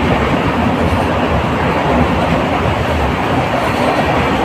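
Passenger train coach running at speed, heard from its open doorway: a loud, steady rumble and rattle of wheels on the rails.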